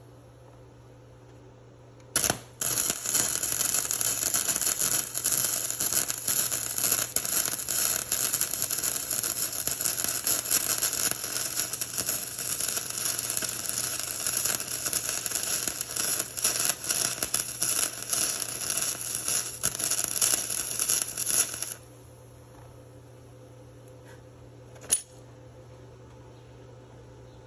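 Flux-core wire welder arc crackling steadily as a weld bead is run, starting about two seconds in after a brief first strike and cutting off suddenly a few seconds before the end. A low steady hum lies underneath throughout.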